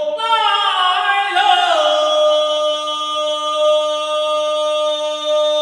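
Unaccompanied voice singing a Zhuang folk song. The phrase slides downward, then settles on one long held note.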